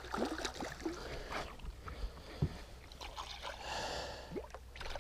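Water splashing and sloshing at the side of a boat as a small hooked musky is brought in and netted, with scattered small clicks and knocks of handling gear. A longer spell of splashing comes near the end.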